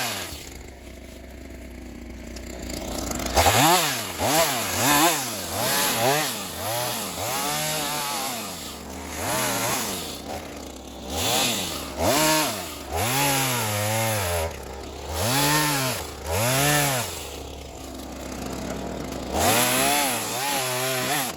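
Ryobi two-stroke chainsaw with its throttle opened and released over and over, about a dozen times. Each time the engine pitch rises and falls, and the saw drops back to idle between them.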